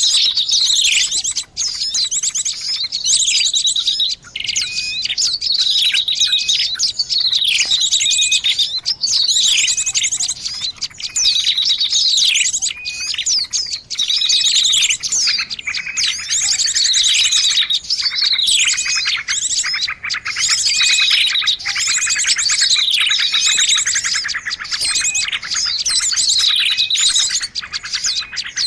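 Bird-lure recording of many small birds calling at once: a dense, continuous chorus of high chirps and twitters, with sharp falling notes repeated every second or two over fast buzzy trills. This is played to attract small birds.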